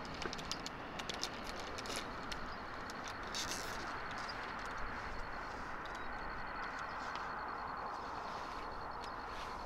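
Steady drone of distant traffic, with a faint high, rapid pulsing tone over it that breaks off briefly twice, and a few light clicks in the first seconds.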